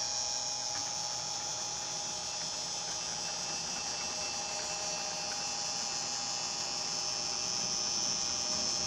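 Homemade CNC router's spindle motor running with a steady high whine while its bit cuts 3 mm plywood, over a steady lower hum.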